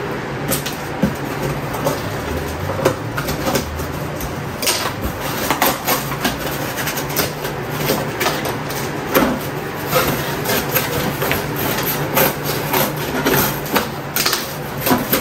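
Cardboard shipping box being opened by hand: flaps scraping and bending, with packaging rustling and crinkling in irregular crackles, over a steady low hum.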